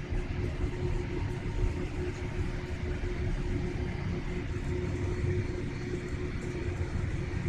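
Cabin noise inside a Boeing 787 Dreamliner taxiing after landing: a steady rumble with a constant low hum running under it.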